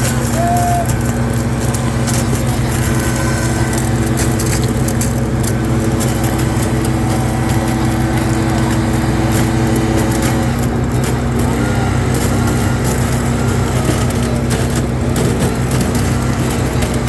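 Leaf blower running steadily and loudly without a break; its tone shifts slightly about ten seconds in.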